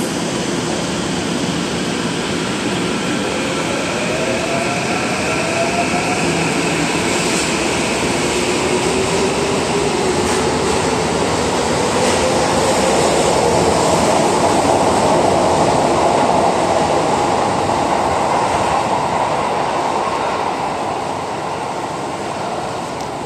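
Tokyo Metro Tozai Line electric train pulling out of the station: its motor whine rises steadily in pitch as it gathers speed over the rumble of wheels on rail. The sound grows louder to a peak about two-thirds of the way through, then fades.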